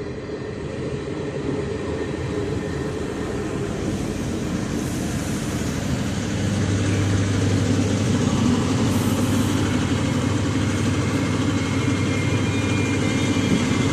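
A train arriving, its rumble growing steadily louder, with a steady low engine drone setting in about six seconds in.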